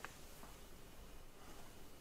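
Near silence: quiet room tone with a faint metallic click right at the start and a softer one about half a second in, from the small screw coupling of a brass model locomotive being handled.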